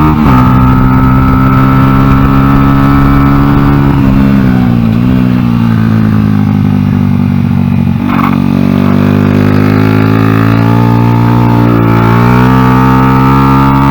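Single-cylinder four-stroke Honda XR100 engine in an NSF100 mini racing bike running hard on track, its pitch held steady at high revs. It dips briefly about four seconds in, and drops about eight seconds in before slowly climbing again.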